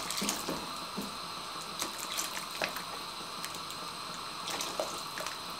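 A pan of soup simmering gently, with scattered small pops, as a silicone spoon stirs it and a cornflour slurry is poured in.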